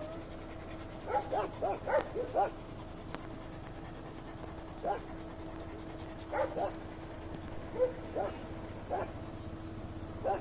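A dog whimpering in short high-pitched whines that come in small clusters, over a steady low hum.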